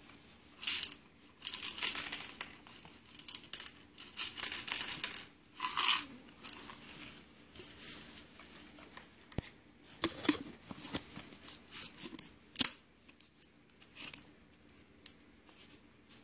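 Crinkling and rustling of a baby-puffs snack package in bursts, then scattered light clicks as the small puffs are dropped onto a plastic high-chair tray.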